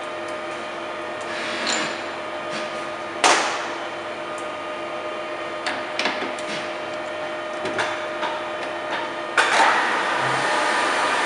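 Deckel FP 4 NC milling machine running with a steady multi-tone hum, broken by sharp metallic clanks and clicks; the loudest clank comes about three seconds in. About nine seconds in, a louder rushing running noise sets in and holds.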